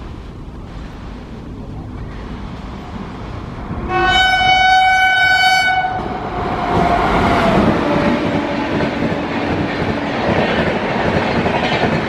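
Indian Railways train horn on the Chennai–Bangalore Double Decker Express: after a low rumble of the approaching train, a short toot about four seconds in is followed by a two-second horn blast. The train then passes close, its noise swelling with a tone dropping in pitch as it goes by, and then the steady clatter of wheels over rail joints.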